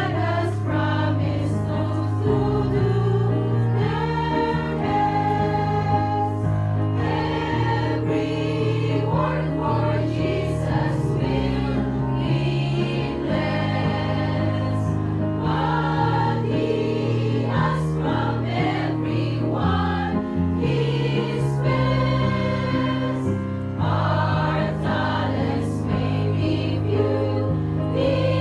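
Women's church choir singing a sacred song in chorus, over a sustained instrumental accompaniment.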